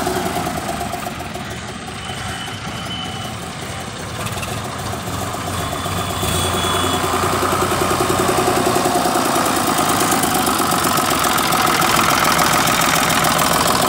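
Sonalika DI 745 III tractor's three-cylinder diesel engine running as the tractor is driven up, growing louder over the first several seconds as it comes close.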